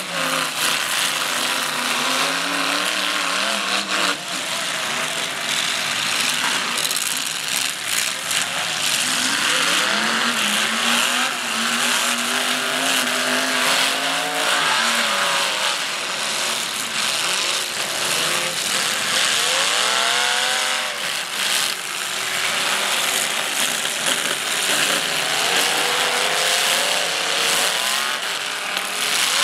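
Several demolition derby cars' engines revving hard and falling back over and over, overlapping one another, with scattered sharp crashes of car bodies hitting each other over a steady din.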